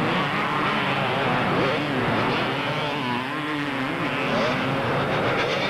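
Several two-stroke motocross bikes revving hard, their engine pitches rising and falling and overlapping as riders race toward and over a jump.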